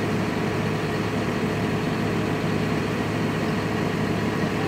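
Backhoe engine running steadily at idle, an even hum with no change in speed.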